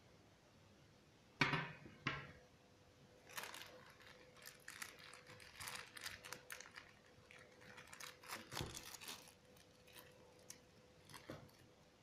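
Two sharp knocks, then a thin plastic bag crinkling and rustling as it is worked off the end of a plastic shipping tube, with a couple of light clicks near the end.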